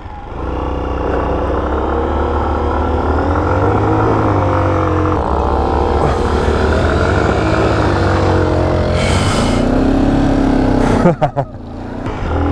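Motorcycle engine pulling away and running under way, its pitch rising and falling with throttle and gear changes. It drops off briefly about eleven seconds in, with a few sharp clicks.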